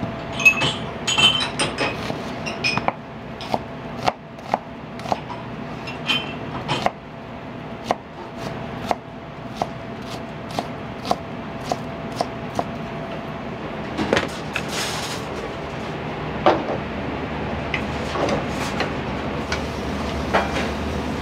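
Kitchen work sounds: dishes clinking at first, then a knife knocking on a cutting board at a steady rate of about two strokes a second. A low steady hum comes in after the middle.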